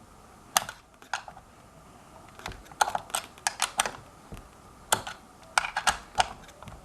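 Irregular sharp clicks and taps of a hand tool working on the screws of a hoverboard frame as they are tightened in a diagonal pattern, with quick runs of clicks around the middle and near the end.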